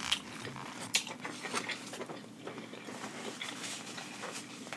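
Close-miked chewing of king crab meat, with scattered soft mouth clicks and smacks. Near the end, the rustle of a paper napkin as fingers are wiped.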